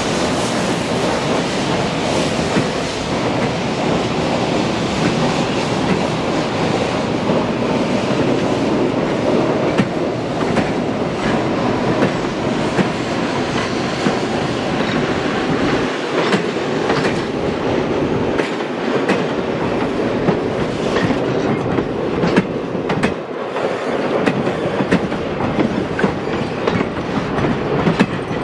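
Steel passenger coaches rolling past, wheels clicking over rail joints above a steady rumble; the clicks come more often in the second half.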